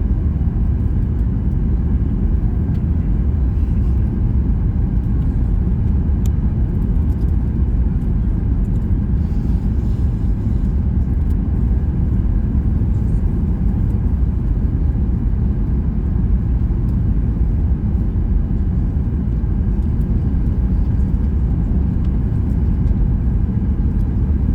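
Steady low rumble of a Boeing 737 MAX 8 heard from inside the passenger cabin: engine and airflow noise, unchanging throughout.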